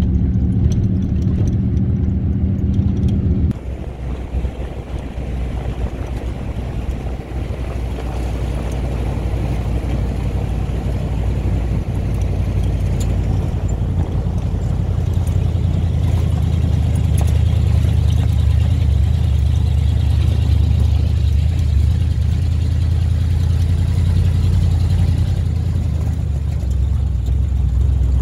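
Vehicle engine running steadily, with road and tyre rumble, heard from on board while driving on rough dirt roads. The sound changes abruptly about three and a half seconds in. From about halfway through, the low engine note grows louder and steadier.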